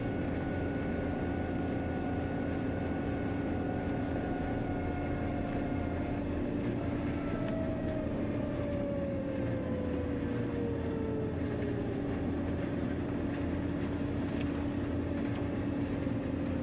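Steady diesel engine drone of a farm machine travelling on the road, heard from inside its cab, with one fixed strong hum. Midway through, a fainter whine slides down in pitch over a few seconds.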